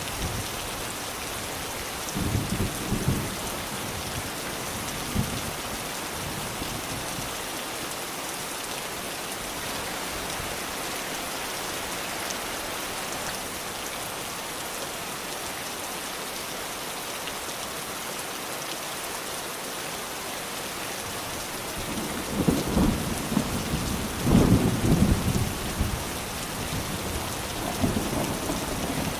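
Steady rain with thunder: a low rumble about two seconds in, and a longer, louder roll of thunder near the end.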